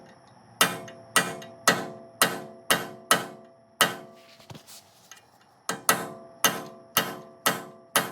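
A hammer striking a brass punch in sharp, ringing blows, about two a second, with a pause of about two seconds midway. The blows are driving tight cone washers out of a Toyota front locking hub.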